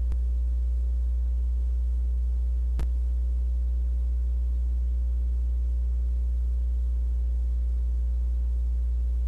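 Steady low electrical hum with a row of fainter overtones above it, and a single click about three seconds in.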